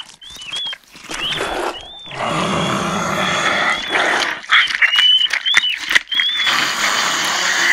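Rick Ratman zombie animatronic's sound effects: creepy zombie growls and groans, with repeated short, high rat squeaks over them and a few sharp loud peaks in the middle.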